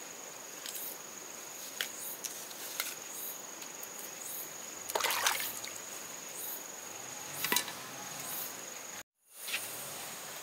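A steady, thin, high insect-like trill runs under scattered light clicks and rustles, with a louder rustle about halfway through. The sound cuts out completely for a moment near the end.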